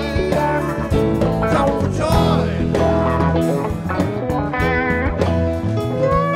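Live rock band playing an instrumental passage: an electric guitar lead with bent, wavering notes over bass and a drum kit.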